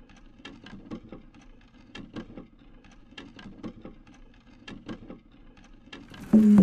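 Animated-gear sound effect of mechanical ticking and clanking: irregular clicks, a few a second, over a low hum. Near the end a sudden loud whoosh and hit comes in, with a low sustained tone under it.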